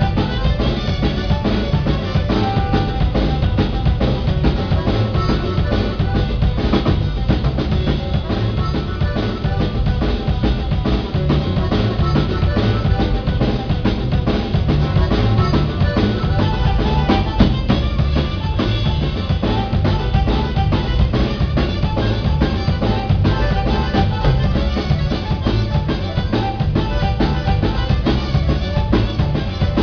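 A live band playing at a sound check, with a drum kit keeping a steady beat and the bass drum and snare up front over other instruments.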